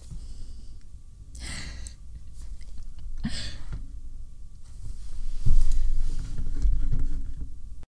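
A woman's breathy, stifled laughter close to the microphone, two short bursts of laughing breath. About two thirds of the way through, low thumps and rumbling as a hand handles the camera, then the sound cuts off abruptly.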